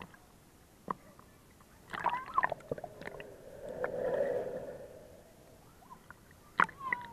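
Pool water splashing and sloshing against the microphone at the surface, with a few sharp knocks. About two seconds in comes a burst of splashes, then a muffled underwater gurgle that swells and fades as the microphone goes below the surface.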